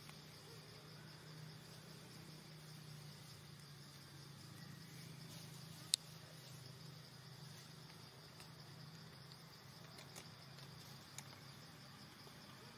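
Faint steady insect chorus, a high pulsing trill, over a faint low hum, with one sharp click about six seconds in.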